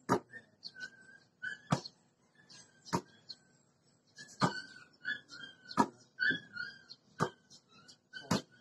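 Basketball smacking into hands on each catch of a chest pass: seven sharp slaps, about one every second and a half. Short, high bird chirps repeat between the catches.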